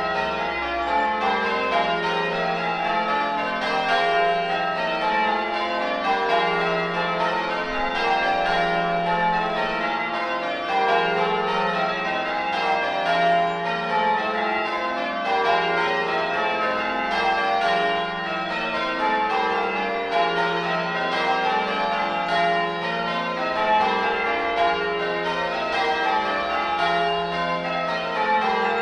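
Change ringing on the 1954 Gillett and Johnston ring of eight church bells: a steady, even stream of overlapping bell strokes that does not pause or fade.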